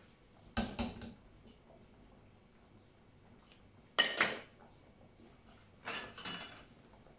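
Cookware and utensils clattering as they are handled at the stove, in three short bursts of knocks and clinks, the loudest about four seconds in.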